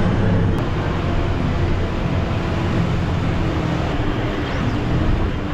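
Bus engine running steadily under continuous road noise.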